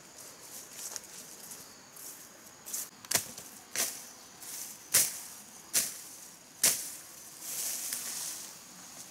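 Machete slashing through weeds and undergrowth: about five sharp strokes, roughly one a second, then a rustle of leaves near the end.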